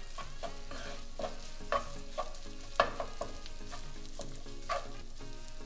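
Rice, shrimp and half-cooked egg sizzling in a nonstick frying pan as a wooden spatula and a silicone spatula stir and toss them, with irregular scrapes and knocks against the pan; the loudest knock is about three seconds in.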